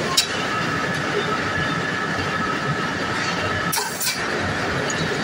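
Steel mill rebar cooling bed and roller table running: a steady mechanical din with a couple of steady whining tones. Sharp metallic knocks come just after the start and twice close together near the end.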